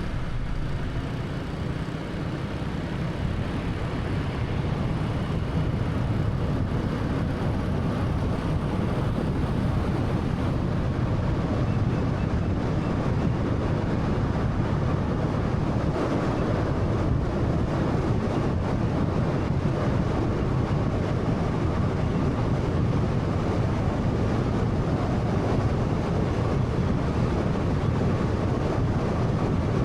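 Road noise from a 2013 Honda Fit 1.3-litre car being driven: a steady low rumble of tyres and engine, growing a little louder over the first several seconds.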